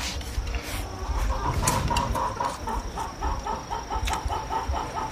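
A hen clucking in a quick, even series of short notes, about four or five a second, starting a little over a second in.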